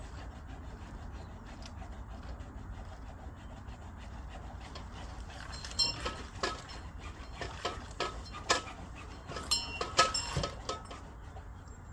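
A low steady hum, then from about halfway a quick, irregular run of about a dozen light metallic clinks and knocks, some with a brief high ring. These are metal bell fittings being handled during the tenor bell repair, and the loudest clink comes about two seconds before the end.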